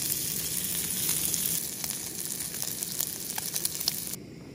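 Sliced summer sausage sizzling in a nonstick frying pan, a steady hiss with scattered pops of fat as a spatula turns the pieces. The sizzle cuts off suddenly near the end.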